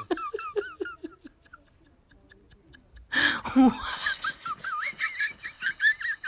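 People laughing: a run of short giggles at the start, then from about three seconds in a louder, high-pitched bout of laughter.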